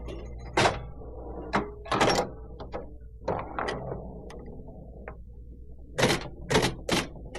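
Pinball machine in play: irregular sharp mechanical clacks and knocks, with faint ringing tones lingering between them and three quick hits close together near the end.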